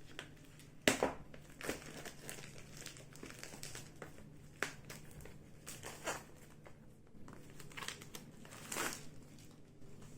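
Plastic seal wrap on a product box crinkling and crackling as it is torn and pulled open by hand, in irregular handling noises, loudest about a second in and near the end.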